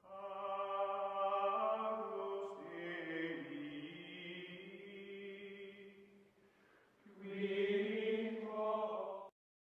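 Choral chant music in long held notes. It sinks low a little past the middle, swells again, then cuts off suddenly near the end.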